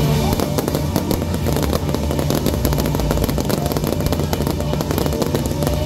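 Fireworks going off in a dense, continuous crackle of many rapid pops as rockets launch and shells burst, over a steady low rumble.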